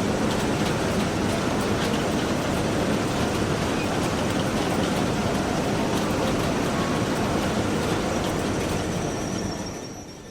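Postal automatic letter-sorting machine running: a steady, dense mechanical clatter with faint scattered ticks, fading out near the end.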